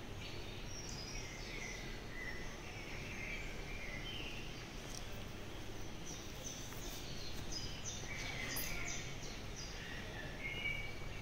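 Steady low hum and background noise, with short, high bird-like chirps scattered through it.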